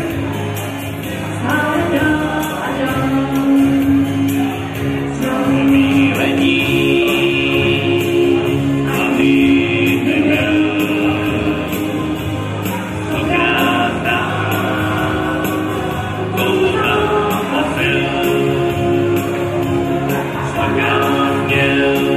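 A live song: a woman singing over electronic keyboards, with a steady drum beat from the keyboard.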